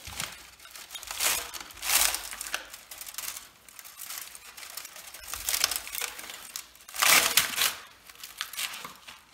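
Cut copper stator windings being worked loose and pulled out by hand: bursts of rustling, scraping and crinkling from the insulated wire bundles, loudest about two seconds in and again near the end.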